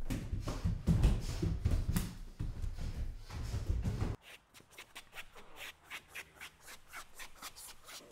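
Loud rubbing and rustling with low thumps, which stops sharply about four seconds in. Fainter scraping strokes follow, about three a second.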